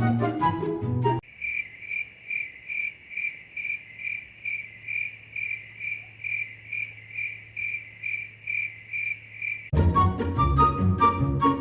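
Cricket-like chirping: one even, high chirp repeated a little over twice a second over a faint low hum. Music plays for about the first second and comes back near the end.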